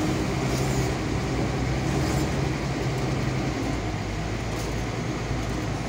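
Diesel engine of a Linde empty-container handler running steadily with a low, even hum.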